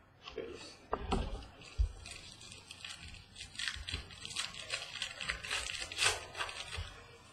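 A few soft thuds as cards are set down on a desk, then a baseball card pack's foil wrapper crinkling and tearing as it is pulled open.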